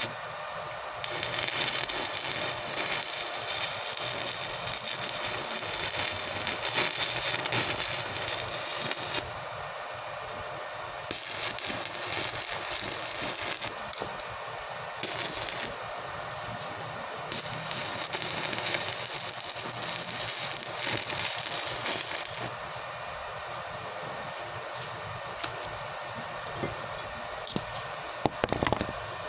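Electric arc welding on steel pipe and rebar: the arc runs in four stretches, the first about eight seconds long and the last about five, with short pauses between. A few sharp clicks come near the end.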